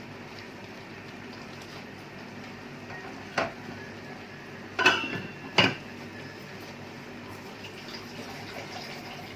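Metal cookware clanking three times against a pot, the last two louder with a short metallic ring, over a steady low background hum.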